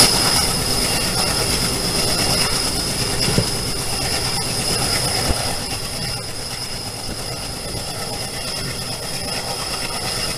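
Indian Railways passenger train running, heard from on board: a steady rumble of the coach with a high-pitched whine over it, and a single knock about three seconds in.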